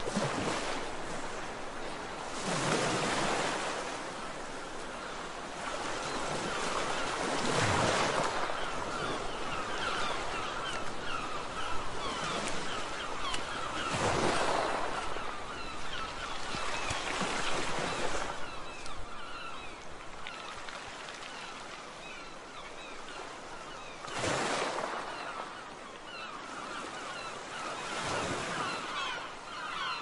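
Small waves washing onto a shore, swelling every few seconds, with faint bird calls behind.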